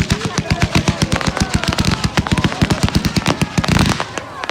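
Fireworks going off in a rapid barrage of sharp cracks and bangs, many a second, rising to a louder continuous burst near the end and then thinning out.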